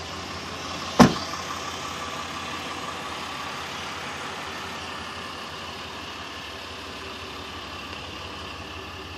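A truck door shuts with one sharp thud about a second in, then the Ram 3500's 6.7-litre Cummins inline-six turbo diesel idles steadily.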